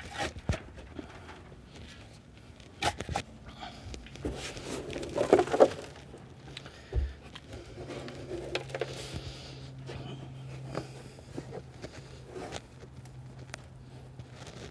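Scrapes, knocks and rustling of a black plastic settlement tank being handled and lowered into a dirt hole, loudest about five seconds in, with a dull thump about seven seconds in. A faint steady low hum runs underneath from about four seconds on.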